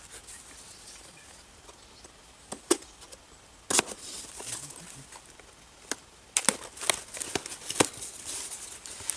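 A cardboard parcel being cut and pulled open by hand with a knife: scattered short, sharp cracks and scrapes of the blade, packing tape and cardboard flaps, a few at first and then a quick run of them toward the end.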